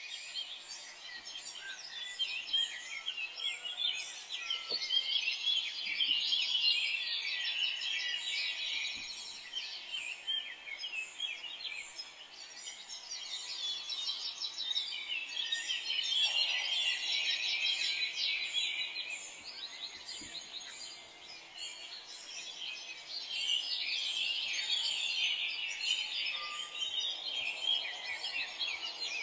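Onions and ginger-garlic frying in oil in an aluminium pot, a dense sizzling crackle that swells and fades in waves, with a few faint knocks of a wooden spatula.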